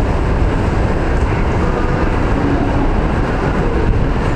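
Steady low rumble and noise of an underground subway station's transfer corridor, heaviest in the bass and without a break.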